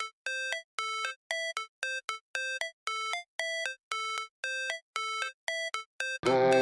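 Electronic music: a run of short synthesized beeps, about three a second, alternating between two notes, with a fuller backing track coming in near the end.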